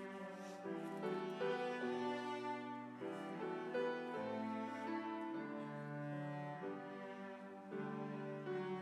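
Slow instrumental music of held, sustained notes that move to a new chord about every second.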